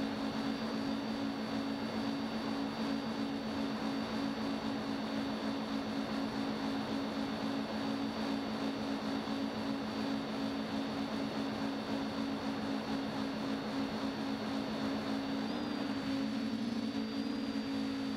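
Quadcopter's electric motors and propellers humming steadily, heard from the craft's own onboard camera, with a high whine above the hum. About three-quarters of the way through the pitch shifts slightly as the motors change speed.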